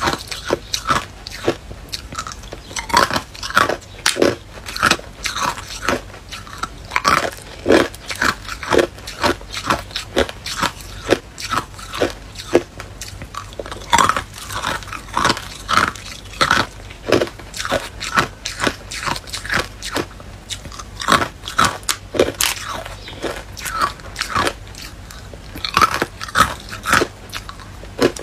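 Hard, clear ice cubes being bitten and chewed: a rapid, irregular run of sharp, crisp cracks and crunches.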